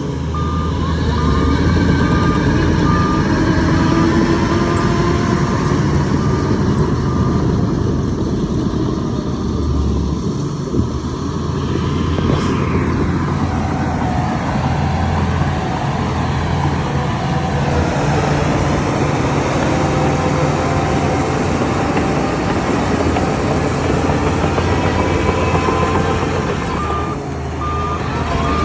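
Heavy diesel construction machinery running steadily, with a reversing alarm beeping at an even pace for the first several seconds and again near the end.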